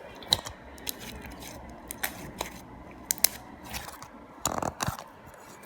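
Slime being worked by hand with fresh activator: scattered small sticky clicks and snaps, with a louder squelching rustle about four and a half seconds in.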